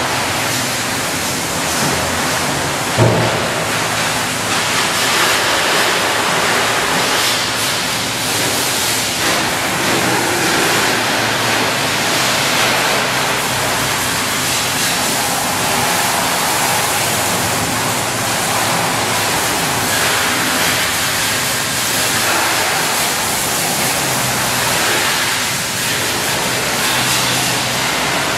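High-pressure water spraying steadily from car wash wands, a continuous loud hiss. A single short knock sounds about three seconds in.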